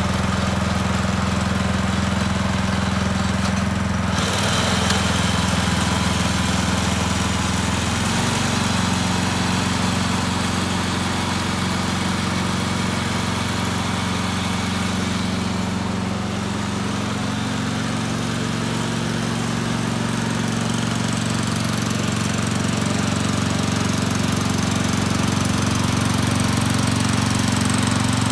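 Mametora HMD-B 7-horsepower walk-behind tiller's engine running steadily while the machine is driven along, its note shifting slightly about four and eight seconds in and again about halfway through.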